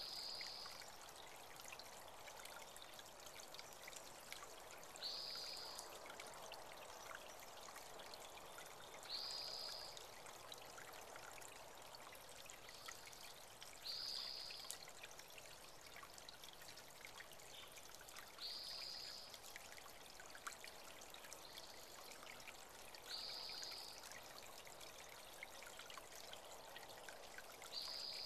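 Faint steady trickle of a small spring-fed creek, with a bird repeating a single short, high, flat note about every four to five seconds.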